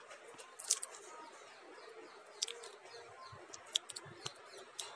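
Steel spoon stirring ivy gourd and tomato fry in a kadai, knocking and scraping against the pan in a few light, separate clicks over a faint background hiss.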